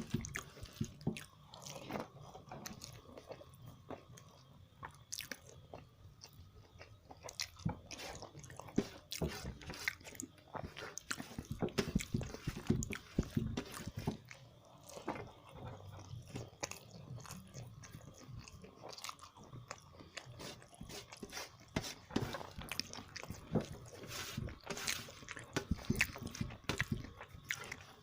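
A person eating close to the microphone: chewing and biting food, with a steady run of small irregular mouth clicks and crunches.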